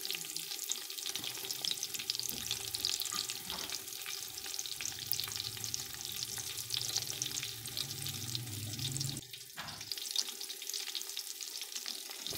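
Chicken koftas and fried onions sizzling and crackling in hot oil, stirred with a slotted steel spoon in a steel pot. The sizzle dips briefly about nine seconds in.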